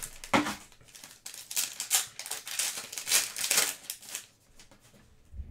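Plastic shrink wrap being torn off a trading card box and crumpled, crinkling and crackling in bursts for about four seconds before it goes quiet.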